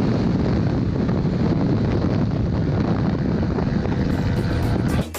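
Wind rushing and buffeting over the microphone of a moving motor scooter, a steady, dense rumble. Music cuts in near the end.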